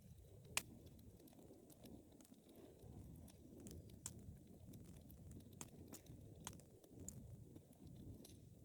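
Wood fire burning in a fireplace: a soft low rumble of the flames with frequent sharp crackles and pops, the loudest pop about half a second in.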